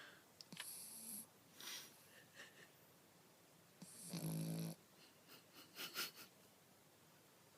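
Sleeping pugalier (pug × Cavalier King Charles spaniel) puppy snoring softly: a few short breathy snuffles, then one longer, louder snore with a low buzzing pitch about four seconds in, followed by a quick run of short snorts near the six-second mark.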